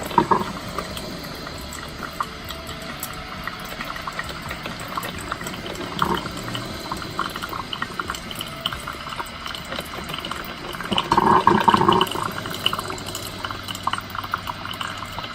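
KRUPS ProAroma drip coffee maker brewing: hot water gurgling and sputtering through the machine with irregular crackles, on a test run with water only. The noise swells louder for a moment about eleven seconds in.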